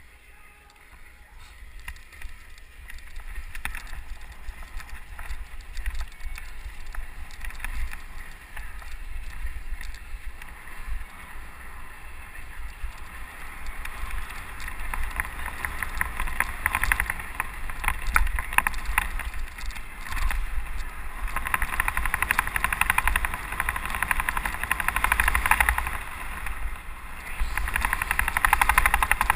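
Mountain bike riding fast down a dirt singletrack, heard from a helmet-mounted camera: wind rumbling on the microphone, tyres rolling over dirt and dry leaves, and the bike rattling over bumps. The noise grows louder from about halfway as speed picks up.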